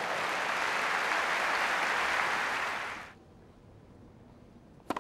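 Tennis crowd applauding a point, cut off abruptly about three seconds in. After a quiet stretch, a single sharp crack of a racket striking a tennis ball on the serve near the end.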